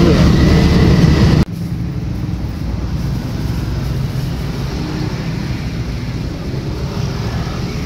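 Steady low rumble of road traffic. About a second and a half in, it drops suddenly to a quieter, even rumble.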